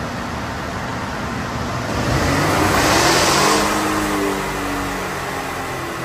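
Twin-turbo 3.4-litre V6 of a Toyota Tundra run under load on a chassis dyno: the sound builds to a peak about three seconds in, then falls in pitch as the run ends and the engine and rollers wind down. Steady fan noise runs underneath.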